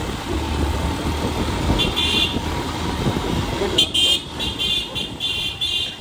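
Motorcycles riding in a group, with engine and road noise, and a vehicle horn. The horn toots once about two seconds in, then gives a quick series of short honks from about four seconds on.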